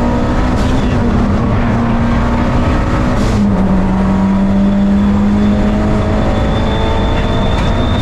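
Mitsubishi Lancer Evolution X's turbocharged 2.0-litre four-cylinder engine running hard at high revs, heard from inside the car over road and tyre noise; its pitch steps down once about three seconds in, then holds fairly steady.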